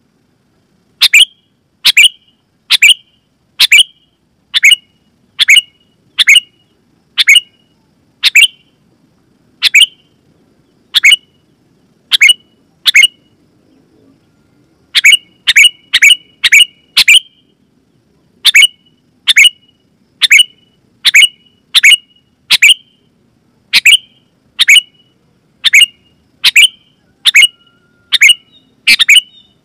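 Sooty-headed bulbul (kutilang) calling: a loud series of short, sharp notes, one or two a second. There is a break of about two seconds near the middle, then a quick run of notes.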